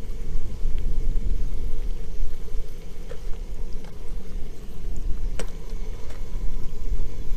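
Wind buffeting the microphone in a fluctuating low rumble, with a few faint clicks about three, five and six seconds in.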